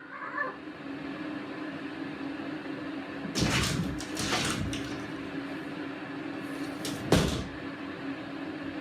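A cat pushing at a closed door, trying to get out: rattling bursts about three and a half seconds in and a sharp knock about seven seconds in, over a steady low hum.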